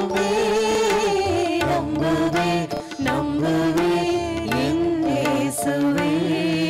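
Tamil devotional hymn sung by a choir over instrumental accompaniment, with a steady percussion beat.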